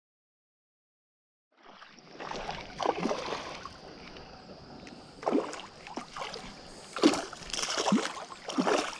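Silent for the first second and a half, then uneven splashing and sloshing of creek water as a hooked fish thrashes at the surface while it is reeled in.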